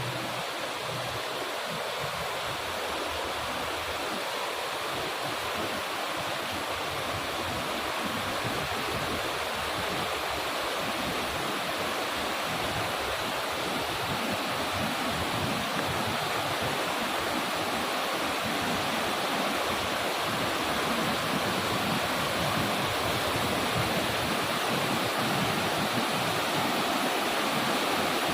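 Steady rush of water from a waterfall, growing slowly louder.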